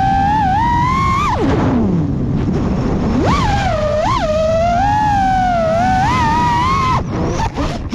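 Onboard audio of an FPV racing quad's BH Avenger 2507 1500kv motors spinning 6-inch DAL 6048 props: a high whine that rises and falls with throttle over a low rush of wind. The whine drops steeply about a second and a half in as the throttle is chopped, then punches back up twice around three and four seconds in. It cuts off suddenly about seven seconds in, followed by a few short knocks and scrapes.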